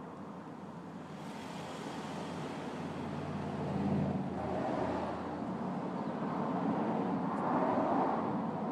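Road traffic noise, with a passing vehicle swelling about four seconds in and another near the end.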